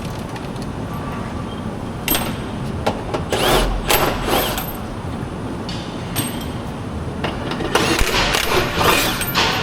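Scattered metallic clinks, knocks and rattles of hand tools and parts being handled during a transmission removal, a few of them ringing briefly, over a steady low hum.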